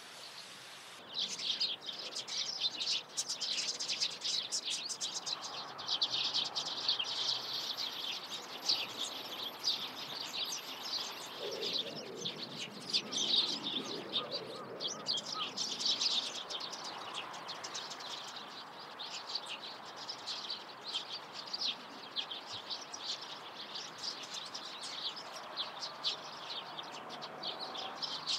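Small songbirds chirping: a dense, continuous chatter of short high notes that starts abruptly about a second in.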